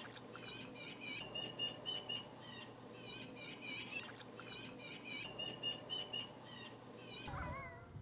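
Small birds chirping over and over in quick, repeated phrases. About seven seconds in, wavering, sliding wolf howls begin over a low rumble.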